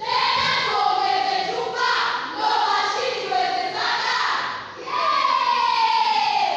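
A high-school choral verse group voicing lines in unison, with drawn-out held notes and one long falling note near the end.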